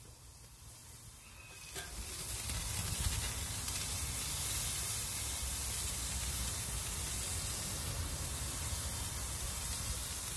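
Dry-aged Black Angus spider steaks searing, a steady sizzle that grows louder about two seconds in, with a low rumble underneath.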